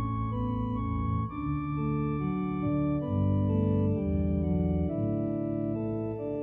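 Organ playing slow instrumental music, held chords over a low bass line, changing about once a second.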